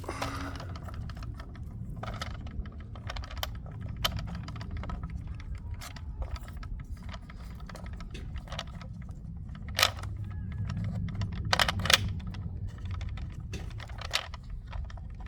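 Scattered sharp clicks and metallic clinks of hand tools and parts being handled while a part is fitted onto a Ford EcoBoost engine during reassembly, the loudest a little under ten seconds in and again around twelve seconds, over a steady low hum.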